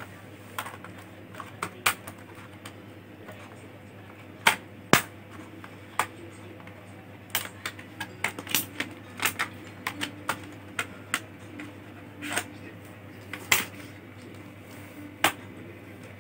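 Irregular sharp plastic clicks and snaps from an HP Pavilion 14 laptop's casing and parts being pressed and worked loose by hand, coming in clusters, loudest about four and five seconds in.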